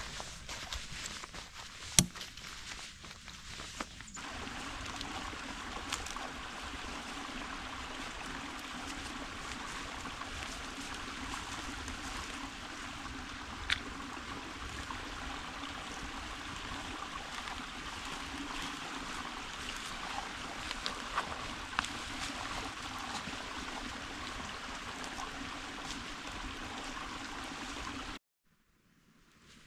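Small woodland creek trickling and gurgling steadily, with a few sharp clicks over it. The sound stops abruptly near the end.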